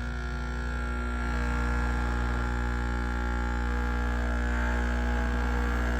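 Nespresso Vertuo Plus coffee machine running its rinse cycle: a loud, steady mechanical hum and buzz that builds a little over the first second or two.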